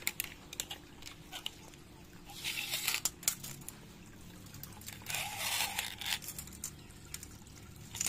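Water from a PVC-pipe waterfall splashing and trickling into a koi pond, fed by a pump. Two louder stretches of splashing come about two and a half and five seconds in, with scattered small clicks.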